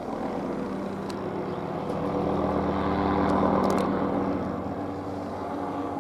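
McDonnell Douglas MD530F helicopter passing low overhead in a fast climb and bank, its turbine and rotor running steadily. The sound swells to its loudest about three to four seconds in, then eases off.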